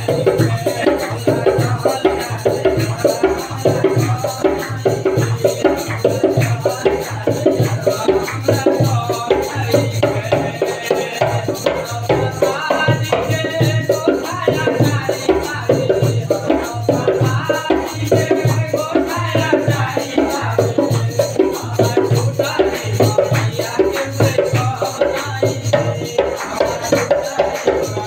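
Live Indian devotional folk singing: a man sings into a microphone over a fast, steady dholak beat, with light rattling percussion alongside.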